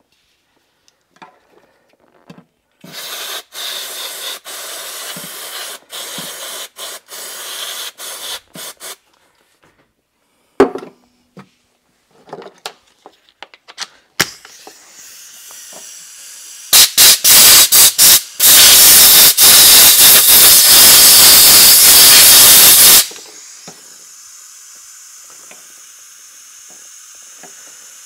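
Aerosol can of electrical contact cleaner spraying onto a corroded plug connector. It comes as a run of short hisses with brief gaps, a knock, then a few quick bursts and one long loud spray of about four seconds.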